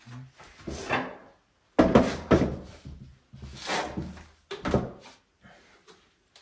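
A few hollow knocks and scraping from a plastic bucket of tile mortar being handled and scooped out. The loudest knocks come about two seconds in and again near the end.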